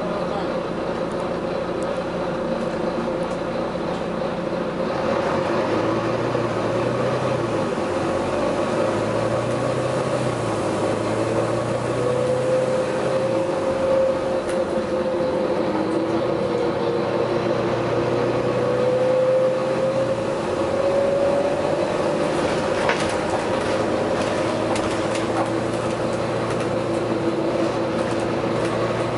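Steady vehicle running noise: a continuous drone with a whine that slowly wavers up and down in pitch.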